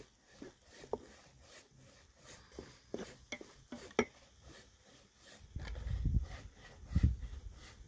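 Wooden spoon stirring leafy greens in a metal saucepan, with scattered light knocks and clicks against the pot. A low rumble comes in for the last two seconds or so and is the loudest part.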